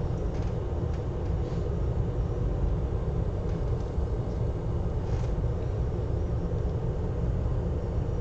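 Steady low rumbling background noise, like a fan or machine running, with a few faint light ticks.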